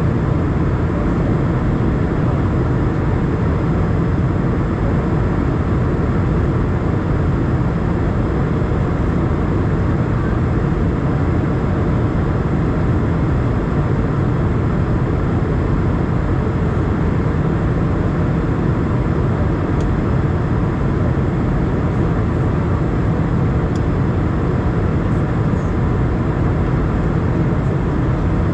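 Steady cabin noise of an Airbus A320 in cruise: the engines and the air rushing past the fuselage heard from inside the cabin as an even, deep rumble.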